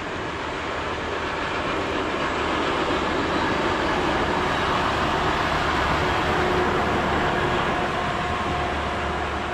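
Rail-mounted tie handler with a grapple arm, towing a small tie cart, passing on the track: engine running and steel wheels rolling on the rails. The sound swells as it goes by and eases off toward the end.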